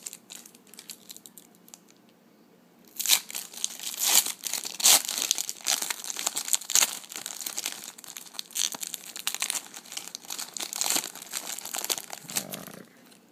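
Foil trading-card pack being torn open and crinkled by hand. It starts about three seconds in, after a few light clicks, and goes as a dense, loud crackle until shortly before the end.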